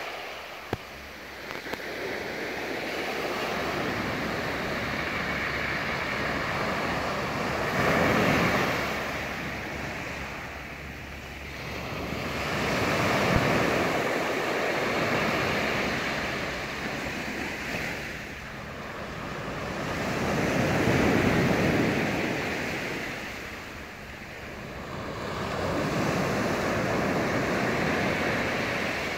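Small surf breaking and washing up a sandy beach, the rushing noise swelling and fading four times as each wave comes in and draws back.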